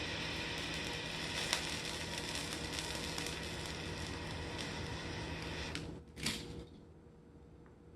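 Small refillable hand torch burning with a steady hiss as it heats a bullet connector to melt solder into it, shut off abruptly about six seconds in, followed by a single sharp click.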